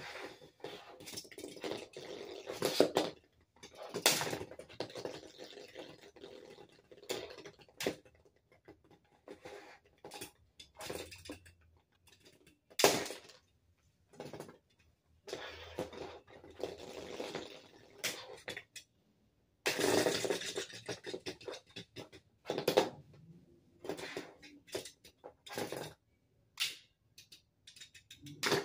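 Plastic Lego spinners being handled and set spinning on a hard plastic surface: a run of clicks, rattles and scrapes with short pauses, a few sharp clacks standing out.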